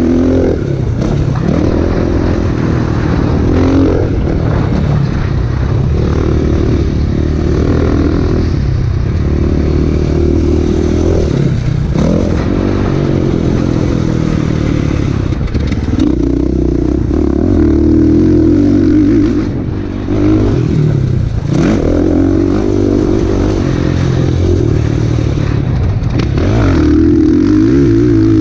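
KTM dirt bike engine revving hard as it laps a motocross track, heard on board: the pitch rises and falls with the throttle and dips briefly several times as the rider shifts or rolls off for corners.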